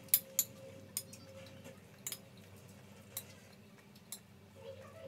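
Spoons clinking and scraping on plates as people eat: a handful of sharp, scattered clicks at an irregular pace.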